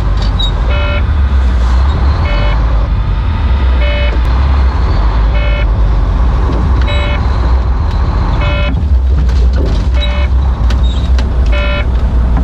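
A truck engine idling, a steady low rumble, with a short electronic beep repeating about every second and a half, eight times in all.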